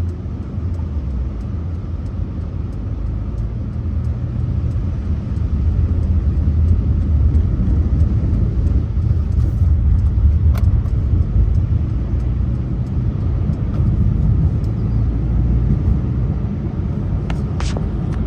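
Car driving on a highway: a steady low rumble of engine and road noise, with a few faint clicks about ten seconds in and near the end.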